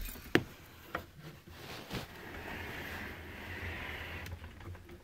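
A few sharp clicks and knocks, the loudest a little under half a second in, then a steady whir with a low hum from the running claw machine.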